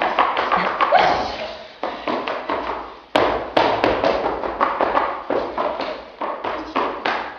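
Rapid, uneven tapping and thuds with a room echo, dying down briefly a few times.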